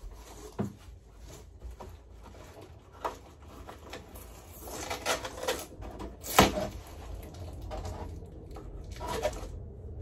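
Guitar packaging being handled: a plastic bag crinkling and the cardboard box bumping, with scattered knocks and one sharp click about six and a half seconds in.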